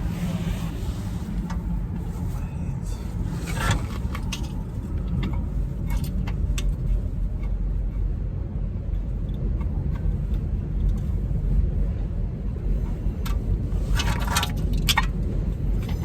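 Metal tools and brake hardware clinking as the front brake caliper bracket goes back on with its 22 mm bolts. The clinks are scattered, with a quick run of them near the end, over a steady low rumble.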